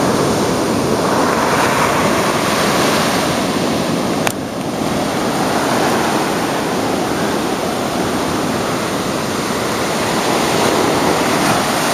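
Ocean surf breaking and washing up a sandy beach: a steady, loud rush of waves that rises and falls in slow swells. A single sharp click about four seconds in.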